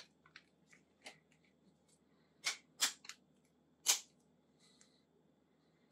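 Thin plastic phone case being fitted onto a Samsung Galaxy S23 Ultra: a string of light clicks and ticks, with three sharper snaps about two and a half to four seconds in.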